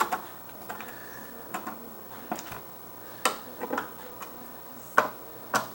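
Irregular light clicks and taps of small bracket hardware being handled as a mounting screw is tightened by hand, about eight in all, the sharpest a little past three seconds in and near the end.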